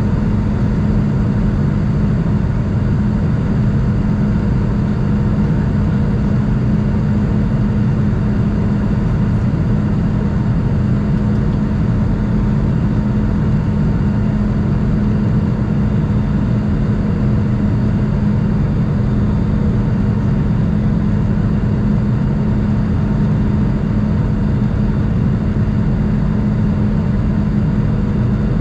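Steady cabin noise inside an Airbus A220 on approach: the constant drone of its Pratt & Whitney PW1500G geared turbofans and the airflow past the fuselage, with a steady low hum and fainter higher tones that do not change.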